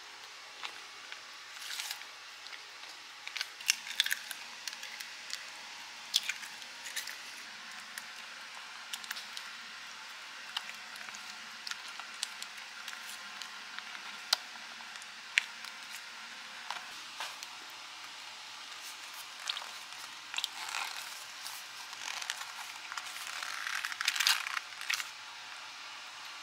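A spatula stirring and scraping cream cheese cheesecake batter around a plastic mixing bowl: irregular clicks and scrapes against the bowl with wet squishing of the batter. The scraping comes in bursts, heaviest near the end.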